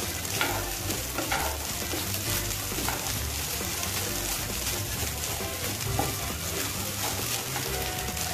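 Sausage fried rice sizzling in a frying pan while it is stirred and scraped with a wooden spatula, with a few sharper scrapes along the way.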